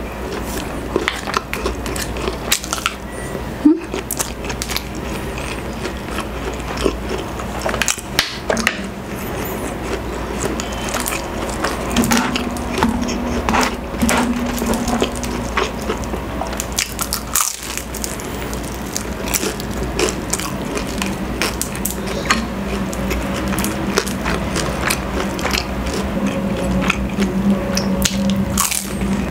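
Close-up mukbang eating sounds: bites and chewing of fried food, including a fried spring roll (lumpiang Shanghai), heard as many short, irregular crackles and clicks.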